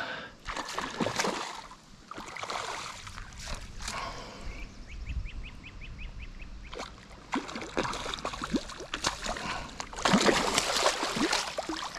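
A hooked smallmouth bass splashing and thrashing in the water close by as it is played to the net, with water sloshing throughout. A short run of quick, even clicks comes near the middle, and the heaviest splashing comes about ten seconds in as the fish breaks the surface.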